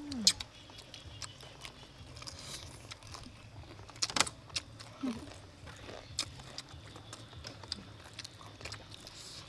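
Crunching and chewing of crispy fried octopus: a run of sharp crackling crunches, the loudest just after the start and about four seconds in. A short falling 'mm' comes at the start and again about five seconds in.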